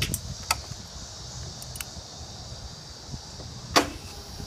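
Several sharp clicks and knocks around the parked motorcycle, the loudest about three and a half seconds in, over a steady high hiss of insects. The engine is not yet running.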